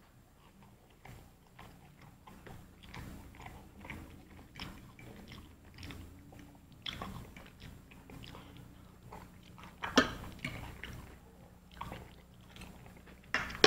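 Close-miked chewing and biting of crunchy food: a steady run of small crunches and mouth clicks, with two louder sharp crunches, about ten seconds in and just before the end.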